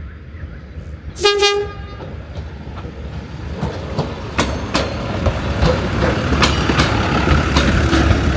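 Savannahlander rail motor arriving. It sounds one short horn blast about a second in, then its running noise and the clicking of its wheels over the rail joints grow steadily louder as it approaches.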